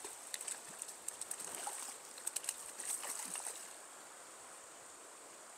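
Stream water running over a steady high buzz, with a run of sharp clicks and small splashes in the first three and a half seconds as a small hooked rainbow trout is brought in.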